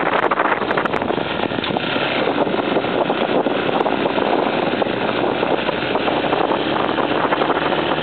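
Off-road motorcycle engine running steadily while the bike rides along a gravel track, mixed with wind noise on the microphone.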